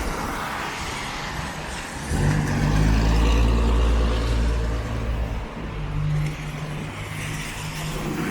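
A road vehicle's engine passing close by, loudest from about two to five seconds in, over a constant low rumble of wind buffeting the microphone.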